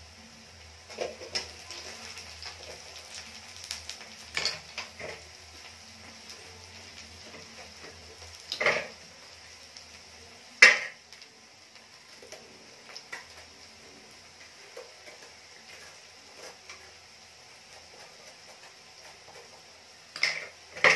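Pumpkin being peeled and cut by hand with a knife over a steel plate: soft scraping and a few sharp clinks of metal on the plate, the loudest about ten seconds in. Underneath is a steady faint sizzle from a potato and capsicum curry cooking in a kadai.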